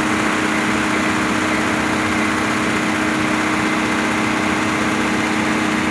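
Excavator's diesel engine running steadily at an unchanging pitch.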